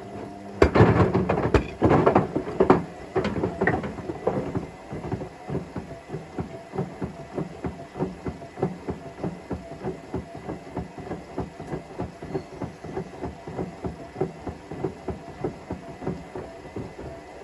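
Washing machine drum turning with a brick and a patio slab inside: several loud bangs in the first few seconds, then a steady knocking about twice a second as the load tumbles.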